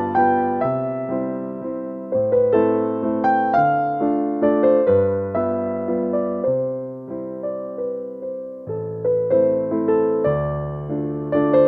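Background piano music: a gentle melody of single struck notes over low bass notes, each note fading after it is struck.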